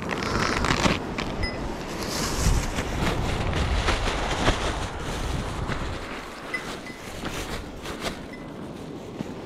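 Thin plastic carrier bag rustling and crinkling as it is handled and shaken open, with many short crackles. Wind buffets the microphone with a low rumble that eases about two-thirds of the way through.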